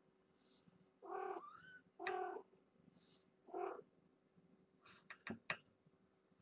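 A cat meowing three short times in the first four seconds, the first call ending in a rising squeak. About five seconds in comes a quick run of sharp clicks or taps, the loudest sound here.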